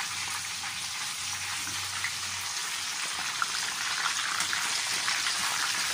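A whole boiled pig's head deep-frying in a wok of hot oil: a steady sizzle with scattered small pops and crackles as the skin crisps.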